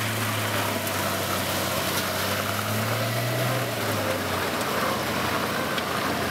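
Toyota Land Cruiser's engine running steadily while the vehicle is bogged in mud and being recovered. Its pitch rises a little about three seconds in, then drops back.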